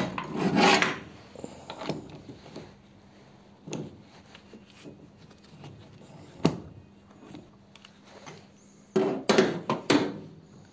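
Close handling noise: cloth rubbing over the microphone, scattered clicks and a sharp knock. Near the end comes a louder cluster of metal clunks and scrapes as a hand works the steel lid of a remote bypass oil filter canister.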